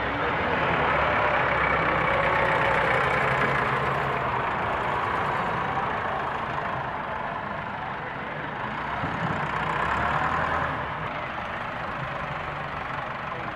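Caterpillar 966F wheel loader's six-cylinder diesel engine working as the loader scoops sand and lifts its loaded bucket. The engine note rises in the first few seconds and again about ten seconds in.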